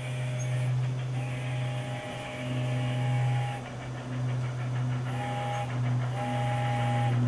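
Sampled steam sounds from a Mylocosound card in a Piko 0-6-0 Dockside model locomotive, played through its on-board speaker as it runs. A three-note chime whistle sounds in a long, long, short, long pattern, the grade-crossing signal, over steady rapid chuffing and a low hum.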